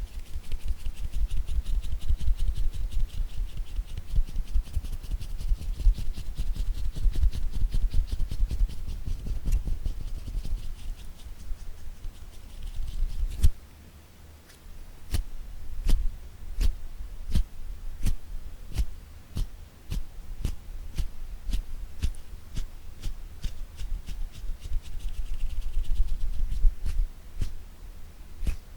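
Fingers tapping rapidly on a small object, a quick patter with a soft low thump under it. About halfway through the tapping breaks into slower, separate taps about one or two a second, and it quickens again near the end.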